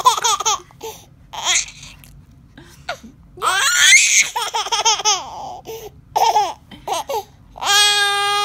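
Baby laughing in short bursts with breathy gasps between them. Near the end comes one long, held squeal.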